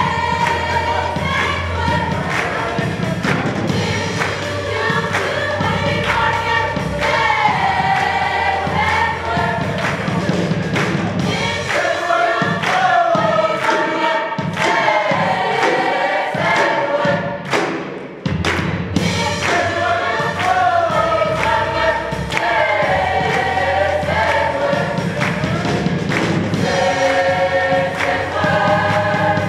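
Youth gospel choir singing in harmony over keyboard accompaniment. About twelve seconds in, the low accompaniment drops away and the voices carry on nearly alone, with a brief break just before eighteen seconds. The full accompaniment then returns.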